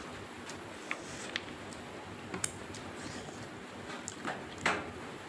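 Close-up eating sounds from chewing mutton curry and rice: a handful of short, wet mouth smacks and clicks over a steady background hiss.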